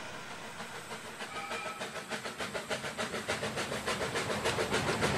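Steam locomotive chuffing at about five or six beats a second, growing steadily louder as the train approaches, with a short faint whistle note about a second in. The chuffs are the steam sound given to a model steam tram locomotive hauling a trial train.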